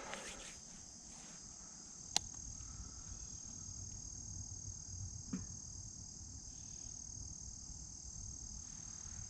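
Steady high-pitched insect chorus trilling without a break, with a sharp click about two seconds in and a softer tick around five seconds.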